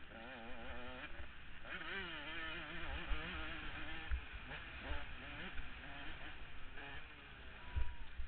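KTM 105 supermini's two-stroke engine revving up and down with rapidly wavering pitch as the bike is raced over a rough motocross track, with a few dull low thumps.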